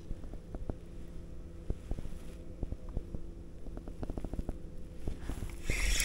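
Spinning reel ticking quietly as the lure is worked, over a faint steady hum. Near the end a hooked fish pulls line and the reel's drag starts to squeal loudly.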